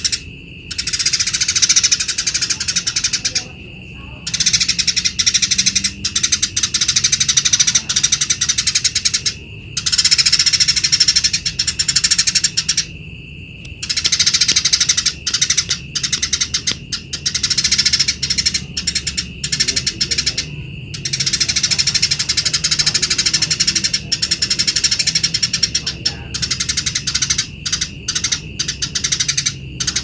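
Eurasian tree sparrow in full song, the chattering 'gacor' delivery: long runs of rapid, unbroken chirps lasting several seconds each, broken by short pauses, the longest about a second a little before halfway.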